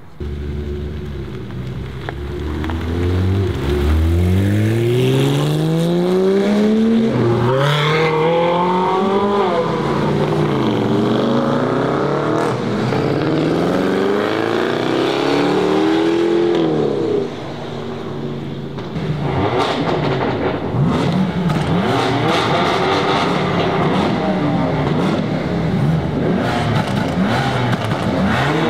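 Sports car engines accelerating hard: an engine note climbs in pitch again and again as it pulls through the gears. About 17 seconds in it cuts away, then several cars rev and pull away one after another.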